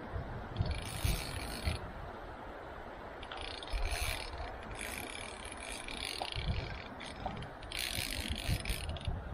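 Fly reel's click-and-pawl drag rattling in three bursts of about a second each as line is pulled off the reel. A few low thumps come in between.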